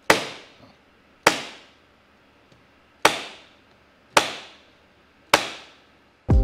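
Duo-Fast electric stapler firing five times, at uneven gaps of one to two seconds, each shot a sharp snap. It is driving staples through the new convertible top fabric to fasten it down.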